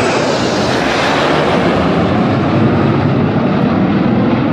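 Aircraft flying past, its engine noise loud and steady, the higher hiss fading after about the first second as it moves away.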